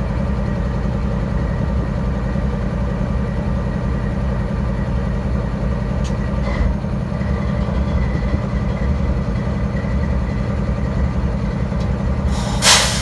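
Diesel-electric locomotive in ex-Santa Fe warbonnet paint idling with a steady low rumble, and a short loud hiss near the end.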